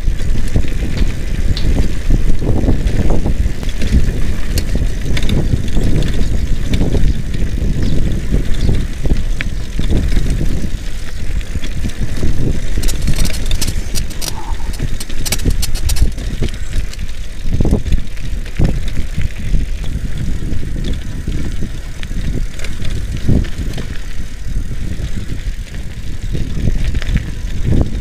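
Urban Terrain mountain bike rolling over a rough dirt-and-gravel track: a steady low rumble and rattle from the tyres and frame, with wind on the handlebar camera's microphone. A run of rapid clicks comes over it about halfway through.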